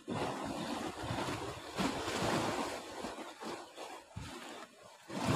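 Wind rushing on the microphone over sea waves washing against a rocky shore. It is an uneven rushing noise that dips briefly a little after four seconds in.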